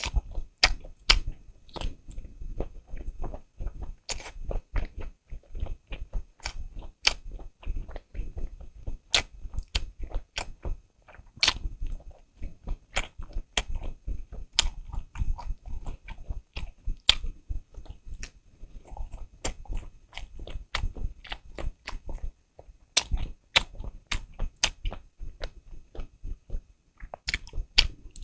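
Close-miked eating: chewing and biting with many sharp, crisp clicks and smacks, a few a second, pausing briefly now and then.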